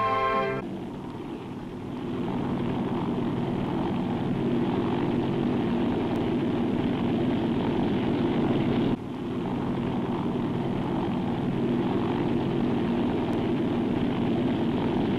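Small helicopter's engine and rotor running steadily close by, with a brief break about nine seconds in.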